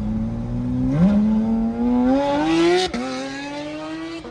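Sports car engine accelerating hard, its pitch climbing steadily. It drops sharply at a gear change about three seconds in, then starts climbing again.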